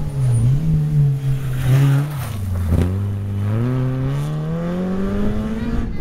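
Rally car engine taking a corner: the revs waver, drop to their lowest about halfway through as it slows, then climb steadily as it accelerates away.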